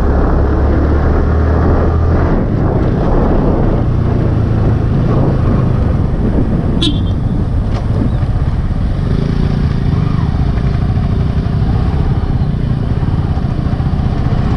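Yamaha sport motorcycle's engine running under the rider with road and wind noise as the bike slows, the engine note shifting lower about two seconds in. A short, sharp sound cuts through about seven seconds in.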